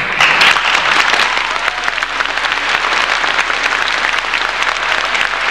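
Audience applause bursting out all at once and going on as dense, steady clapping.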